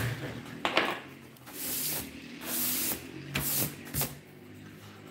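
A knock as a knife is set down on a paper-covered table, then four swishing brushing strokes as a hand sweeps wood scrapings off kraft paper.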